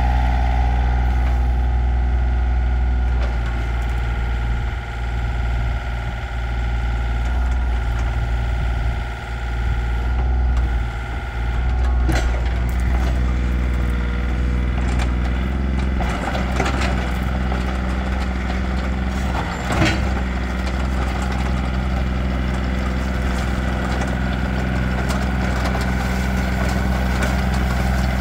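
Komatsu PC20-7 mini excavator's diesel engine running steadily while its hydraulics work the boom, arm and swing. The engine note sags and wavers under load between about 4 and 12 seconds in, then picks up again, with a few sharp knocks around the middle.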